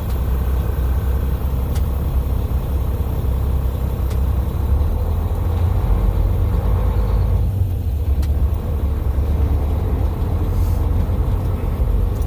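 Semi truck's diesel engine running, heard from inside the cab as a steady low rumble.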